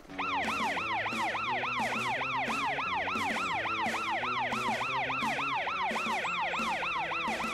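Cartoon fire truck's siren in a fast yelp, rising and falling about three times a second, over background music.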